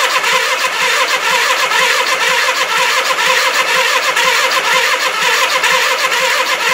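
1979 Suzuki GS425L's parallel-twin engine being cranked on its electric starter with the choke on: a steady starter whine over an even, rhythmic chug. It turns over but does not fire, because the freshly rebuilt carbs are still empty of fuel.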